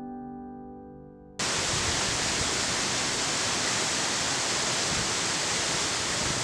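A sustained piano chord dies away, then about a second and a half in it cuts suddenly to the steady rush of a waterfall.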